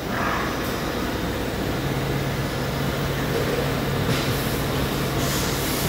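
Chiron FZ 15K S five-axis high-speed machining center running its warm-up program: steady machine noise, with a low hum coming in about two seconds in and two short hisses in the second half.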